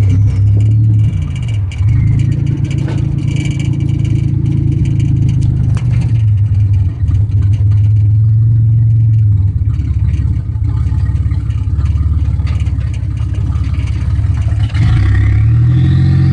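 Buick Grand National engine running at a rough, uneven idle: the engine's idle is not right. Its speed sags briefly about two seconds in, and near the end a rev brings a high whine rising steeply in pitch.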